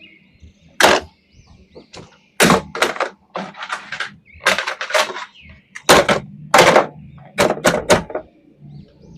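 Plastic toys and packaging being handled: an irregular run of short, sharp clicks, knocks and rustles, about a dozen, some in quick clusters.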